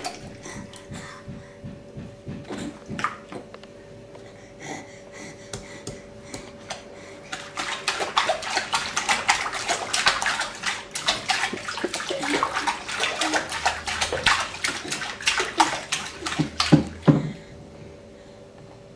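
Baby splashing and slapping his hands in soapy bathwater in a sink. A few scattered splashes at first, then a quick, busy run of splashing from about eight seconds in that stops a couple of seconds before the end.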